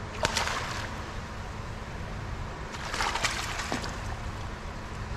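Water splashing twice in a seabird exhibit pool, briefly just after the start and again about three seconds in, over a steady low rumble and hum.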